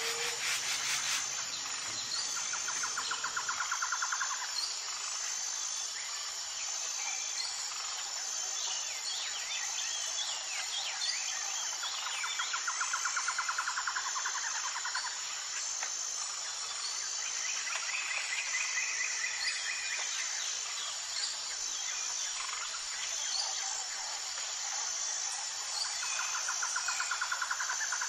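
Outdoor nature ambience: a steady high insect drone, with scattered bird chirps and a pulsed trill that comes and goes three times.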